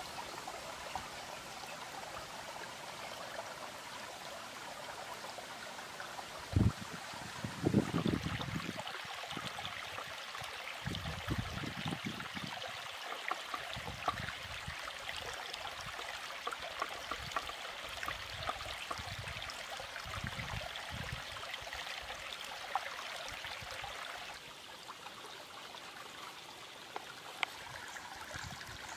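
A stream runs steadily, with irregular dull knocks of a knife cutting beef liver on a wooden cutting board; the two loudest knocks come about six and a half and eight seconds in.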